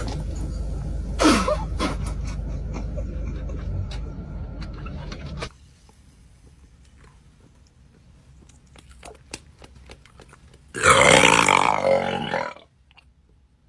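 A long, loud human burp of nearly two seconds, about eleven seconds in, from the gas of a bottle of Sprite gulped down. Before it, a steady low rumble stops abruptly about five and a half seconds in.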